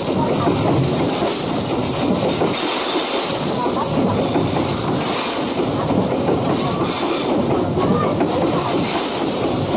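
Open-top coal wagons of the Babaranjang freight train rolling past close by: a steady, loud noise of steel wheels running on the rails.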